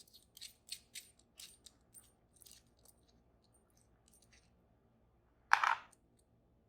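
Small metal lock parts clicking and tapping as a cabinet cam lock is handled, about a dozen light clicks over the first three seconds. About five and a half seconds in comes one louder metal clank with a short scrape.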